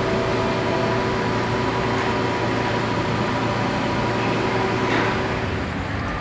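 Steady mechanical hum and noise of an underground train platform with an electric train standing stopped beside it.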